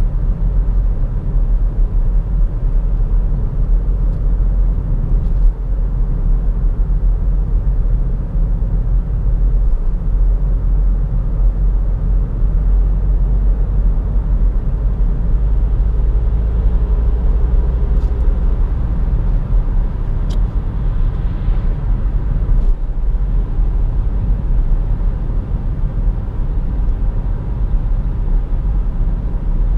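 Cabin noise of a Kia Optima SW 1.7 CRDi turbodiesel estate cruising: a steady low rumble of tyres, four-cylinder diesel engine and wind heard from inside the car.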